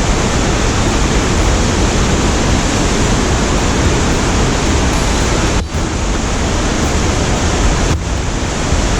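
Cruise ship's wake rushing and churning just below the stern, a loud, steady roar of water.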